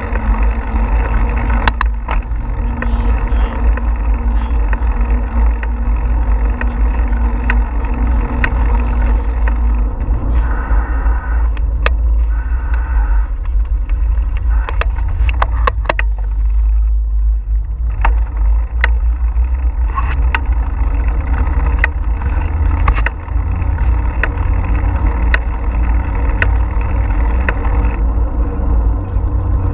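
Wind buffeting a bicycle-mounted action camera's microphone, with a steady low rumble of tyres rolling on a paved trail and scattered sharp clicks and rattles.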